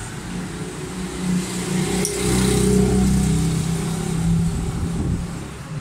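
Motor vehicle engine running at a steady low pitch, growing louder through the middle and easing off near the end, over street noise. One brief click about two seconds in.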